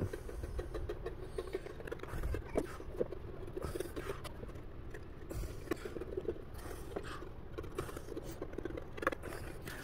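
Faint, irregular scratching and light tapping of a small stiff brush dabbing carbon fiber strands into wet epoxy on a carbon-fiber battery tray and hull, over a low steady room rumble.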